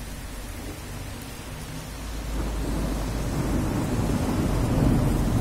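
Rain falling steadily during a thunderstorm, with a low roll of thunder that builds from about two seconds in and is loudest near the end.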